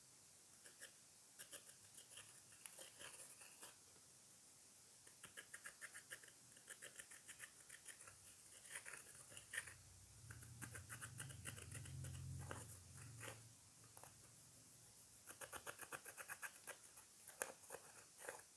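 Slime being kneaded and squished by hand: quiet runs of quick sticky clicks and small pops, with a faint low hum through the middle.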